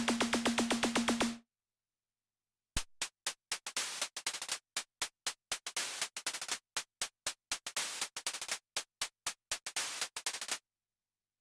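Korg Minilogue XD analog synthesizer playing factory presets dry. A fast repeating pulse, about seven a second, over a held tone stops abruptly about a second and a half in. After a short gap comes a sequence of short, sharp, noisy percussive hits in an uneven rhythm, which stops about a second before the end.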